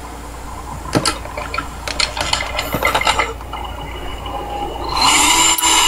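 A few short clicks and knocks of handling, then about five seconds in a Black & Decker 12 V cordless drill driver, running on a rebuilt 18650 lithium pack, starts up and runs steadily, driving a screw into wood.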